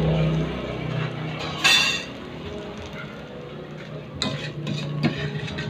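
Metal ladle scraping and knocking against a metal wok while stir-frying. There is one loud ringing scrape about a second and a half in, and a few sharp knocks near the end.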